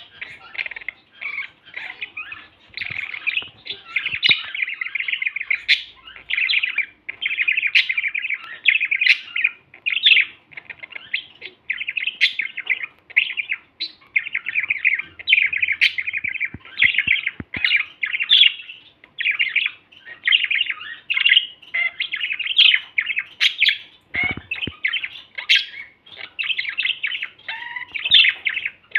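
Male budgerigars warbling: a rapid, nearly continuous chatter of short chirps and clicks.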